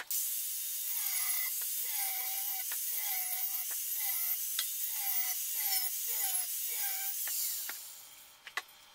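Angle grinder with a cut-off disc cutting through a 42 mm metal water pipe. It is a loud, hissing whine whose motor note dips in pitch again and again, under a second apart, as the disc bites into the pipe. The grinder winds down just after seven seconds, and a couple of light clicks follow.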